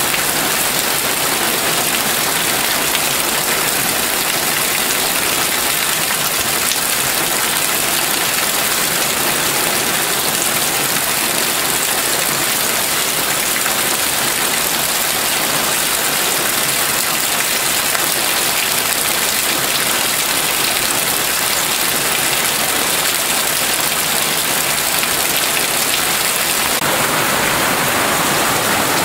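Steady rain falling, with a stream of runoff from the roof pouring onto the lawn and splashing into a puddle. The noise changes slightly near the end.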